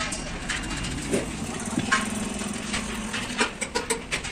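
Light clicks and taps of metal alternator parts and tools being handled. A steady low hum sounds for about a second and a half in the middle.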